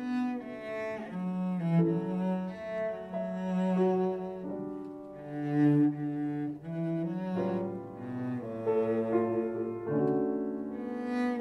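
Cello played with the bow: a slow melodic line of held notes in a mellow, jazz-inspired piece.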